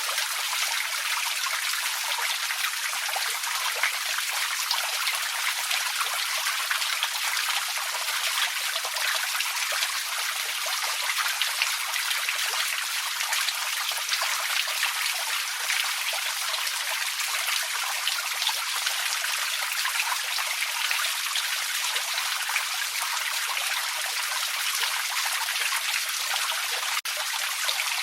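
Small forest creek trickling and babbling steadily, full of tiny splashes, with a momentary break about a second before the end.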